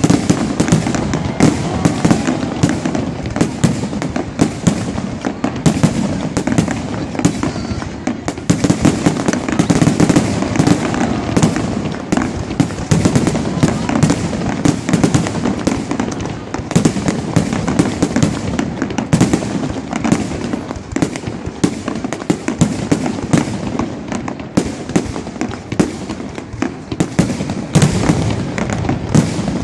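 A fireworks display: a dense, continuous run of irregular bangs and booms, many shells bursting close together, with voices from a crowd underneath.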